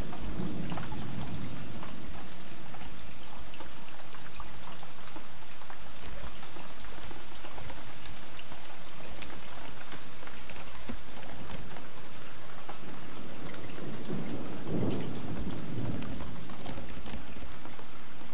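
Light rain falling steadily, with many close drops ticking. A low rumble of thunder dies away at the start, and another rumble lasting about two seconds comes late on.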